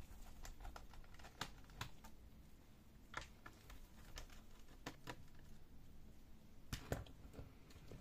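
Faint scattered clicks and taps of a small screwdriver and gloved fingers on a laptop's plastic bottom case as the bay-cover screws are undone, with a couple of louder knocks near the end.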